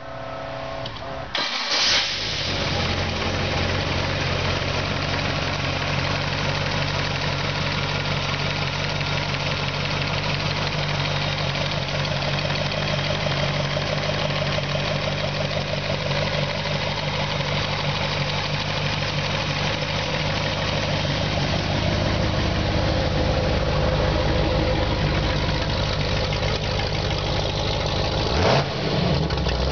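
V8 engine with a four-barrel carburettor and tube headers being started: a brief crank, then it catches about two seconds in and settles into a steady idle. A short, sharp knock comes near the end.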